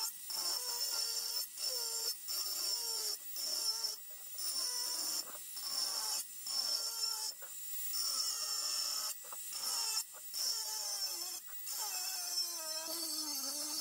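Angle grinder with a thin cutting disc cutting into a steel car wheel: a high whine with the screech of disc on metal, the motor's pitch sagging as the disc bites and recovering. It is broken by brief gaps about once a second.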